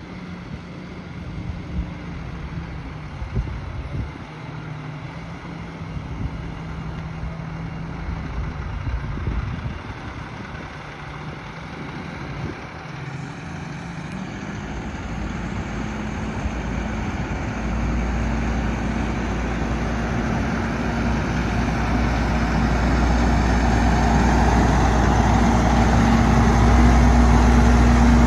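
Rear-loader garbage truck's diesel engine running, with a few knocks early on, then growing steadily louder and deeper as the truck drives up and passes close by.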